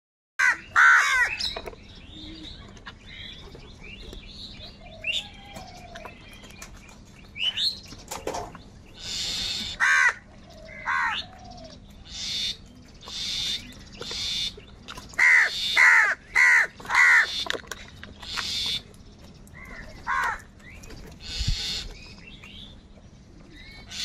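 House crows cawing repeatedly in harsh single calls, including a quick run of four caws about two-thirds of the way through, with short noisy bursts between the calls.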